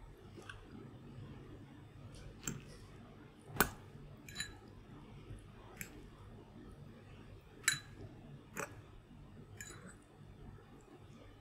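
Metal fork clinking against a ceramic bowl while tossing instant noodles in soy sauce: about seven light, scattered clinks, the sharpest about three and a half seconds in, over faint room noise.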